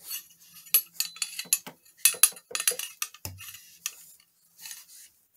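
A cleaning rod being pulled through a 12-gauge shotgun barrel, the rod clinking and scraping against the steel bore in a rapid, irregular run of clicks that dies away near the end.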